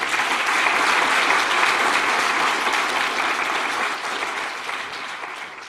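Audience applauding, a dense clatter of many hands that sets in at once and fades toward the end.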